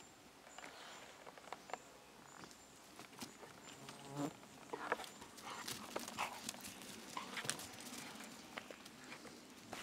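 English pointer dogs running and trotting over the leaf-littered forest floor: faint scattered pattering footfalls and rustles of leaves and twigs. A faint, thin, high broken tone is heard in the first few seconds.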